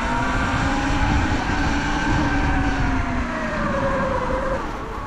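Sur-Ron electric dirt bike's motor and belt drive whining while riding, over a low rumble of wind and tyres. The pitch rises slightly, then falls about four seconds in as the bike slows.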